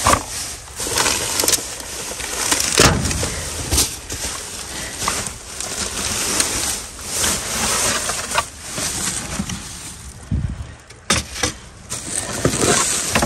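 Plastic bags and trash rustling and crinkling as gloved hands dig through a packed dumpster, with a few dull thumps as bags and cardboard are shoved aside.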